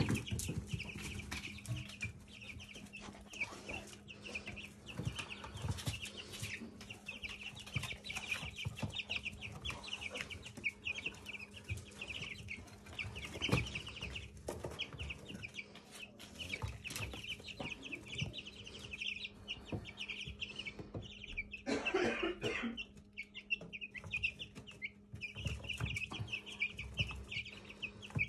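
A brood of young chicks peeping steadily, many short high cheeps overlapping one another, over a steady low hum. One louder, lower call stands out late on.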